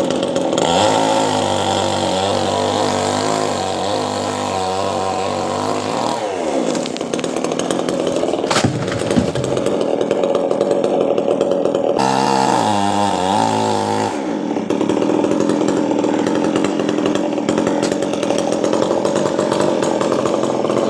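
A petrol chainsaw cutting a coconut tree trunk, running continuously. Its note twice slides down, and there is one sharp crack about eight and a half seconds in.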